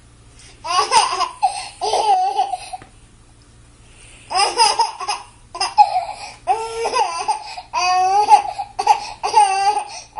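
Baby laughing and squealing in high-pitched bursts: a short run about a second in, then a longer string of laughs from about four seconds on.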